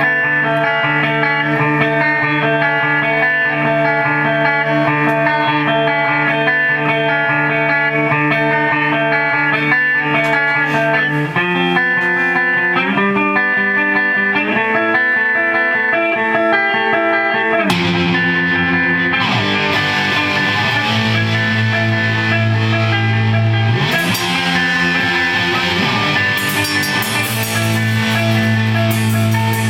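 Punk band's song intro: an electric guitar repeats a chord figure, the chords shift about eleven seconds in, and about eighteen seconds in the full band comes in with drums, cymbals and distorted guitar.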